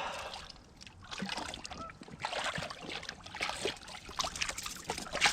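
Water splashing and sloshing in irregular bursts as a large hooked carp is wrestled at the surface and lifted out, with scattered knocks from handling.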